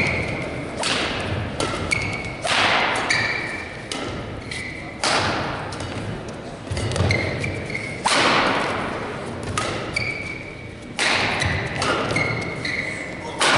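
Rackets striking a shuttlecock in a badminton rally: about a dozen sharp hits, roughly one every second or so, each echoing in a large sports hall. Brief squeaks of shoes on the court mat come between the hits.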